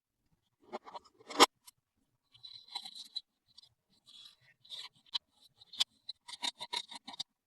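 Small plastic toys and packaging being handled: scattered clicks, light scraping and rustling, with one sharp click about a second and a half in and a quick run of about five taps a second near the end.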